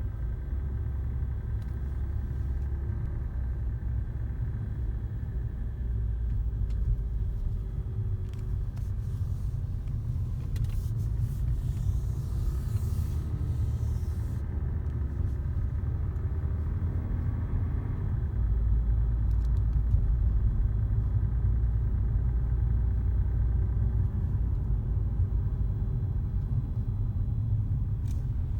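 Jaguar XJ cabin on the move: steady low road and engine rumble, with a faint, occasional squeak from under the dashboard.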